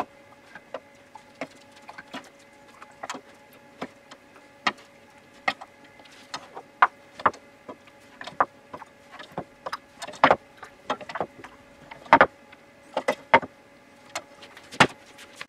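A ladle clinking and knocking against a stainless steel pot and glass jars as hot jam is ladled into the jars: irregular sharp clicks, with the loudest knocks about ten and twelve seconds in. A faint steady hum runs underneath.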